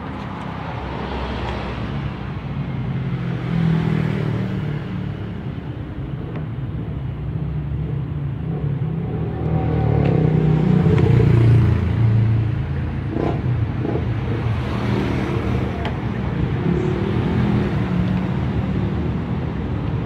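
Low, steady engine-like rumble that swells about ten seconds in, with a few light clicks a little after.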